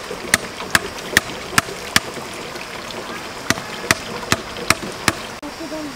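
Sharp, evenly spaced knocks, about two and a half a second, in a run of six and then, after a short pause, a run of five, as bamboo tubes are knocked into holes in a plastic pipe. A stream rushes steadily underneath.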